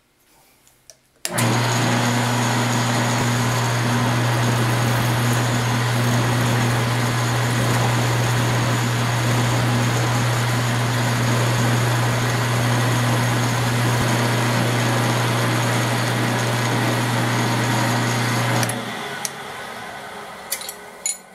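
Round-column mill-drill switched on about a second in, its motor and spindle running steadily with a strong low hum and a wide hiss while drilling holes in a 6061 aluminum plate. A couple of seconds before the end it is switched off and winds down, with a few light clicks.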